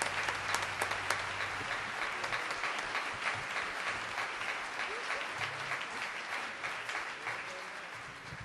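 Large audience applauding, with the clapping thinning and fading away near the end.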